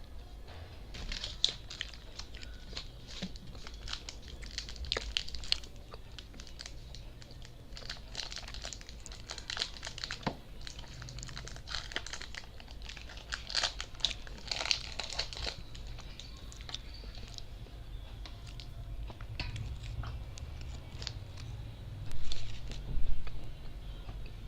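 Chocolate bar wrappers crinkling and tearing as they are handled and opened, in crackly spurts. Near the end come two louder dull knocks.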